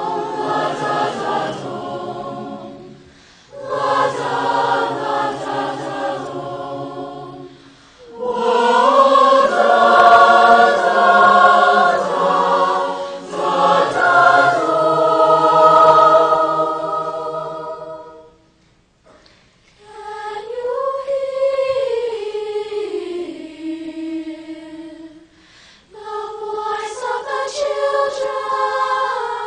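Slow choral music: voices singing long held chords in phrases a few seconds long, with short breaks between them. Past the middle a thinner line of voice rises and then falls, before the fuller chords return near the end.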